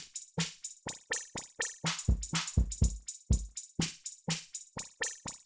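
Electronic drum-machine loop played through FL Studio's Effector and Multiband Delay patch. It is a quick run of short, sharp hits, about four or five a second, some with a low thud beneath.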